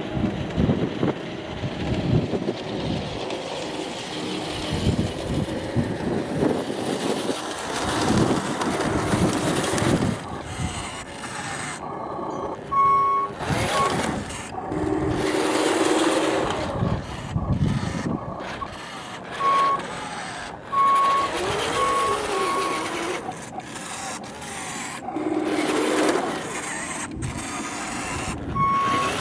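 Radio-controlled scale model Volvo A40G articulated dump truck moving over gravel, with steady running noise and short knocks. Several runs of short high reversing beeps come from its sound unit: one about 13 s in, a longer run around 20 to 22 s, and another near the end.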